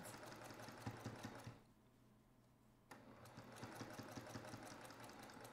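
Domestic sewing machine stitching through fabric, a faint, fast, even run of needle strokes that stops after about a second and a half and starts again about a second later.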